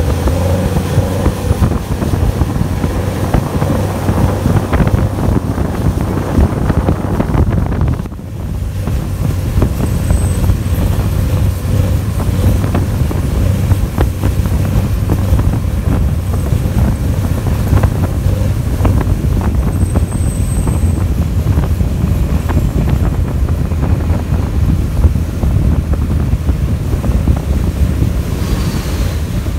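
Boat engine running steadily while the boat is underway, with wind buffeting the microphone; the sound briefly drops about eight seconds in.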